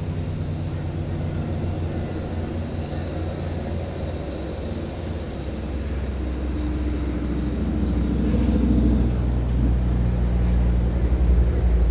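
Diesel locomotive engine running as it approaches, a low steady drone with a higher engine note joining about six seconds in and the whole sound growing louder near the end.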